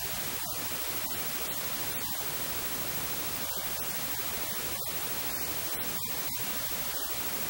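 Steady static hiss spread evenly from low to high pitches, with no speech heard.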